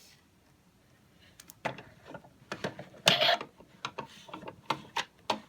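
Plastic toy washing machine handled by hand: a series of clicks, knocks and rubbing as its door is worked open.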